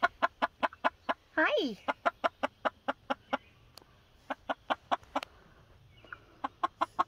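Silkie chickens in a wire crate clucking in quick, even runs of about five clucks a second, pausing briefly between runs. About a second and a half in there is one longer call that falls in pitch.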